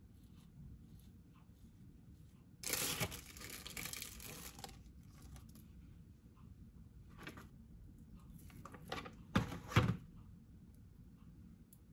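Something being torn and crinkled for about two seconds, a few seconds in, like wrapping or packaging being torn open, followed near the end by two short knocks.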